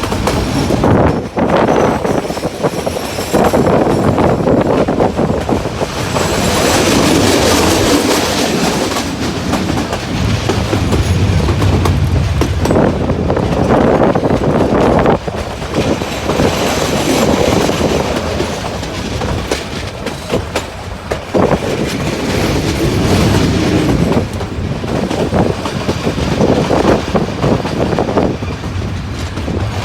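Ooty toy train of the Nilgiri Mountain Railway running, a loud continuous rattle of the carriages with wheels clattering over the rail joints, swelling and easing.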